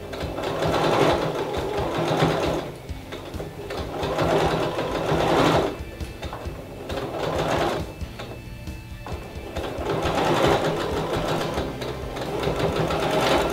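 Domestic electric sewing machine stitching a curved seam. It runs in several bursts of a couple of seconds each, with short pauses between as the fabric is turned.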